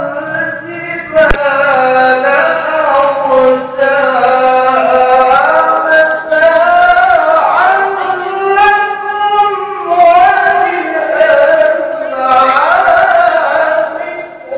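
A man's voice in classical Qur'an recitation (tilawah) into a microphone: long, high, ornamented melodic phrases held for several seconds each, gliding between notes. There is a single sharp click a little over a second in.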